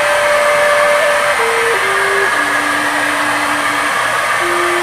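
Handheld Total electric paint spray gun running steadily, its motor blowing as it sprays paint. A thin tune of held notes stepping between pitches sounds over it.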